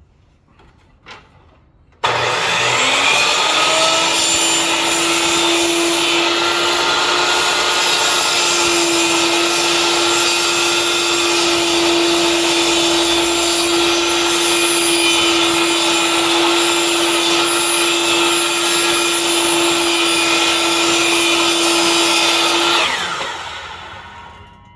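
A power tool starts up about two seconds in and runs steadily for about twenty seconds, cutting open the plastic housing of a refrigerator water filter, then winds down near the end with a falling pitch.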